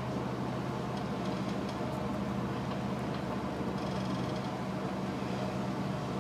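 Steady low drone of marine diesel engines, with several even low tones under a haze of noise and no change in level.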